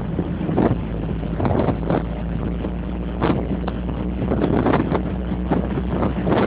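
Car engine running steadily while driving, heard from inside the car, with wind gusting over the microphone in irregular surges.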